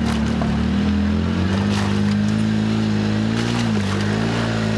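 An off-road vehicle's engine running steadily while driving a dirt trail, its pitch dipping and rising slightly about three and a half seconds in. A few sharp knocks sound over it.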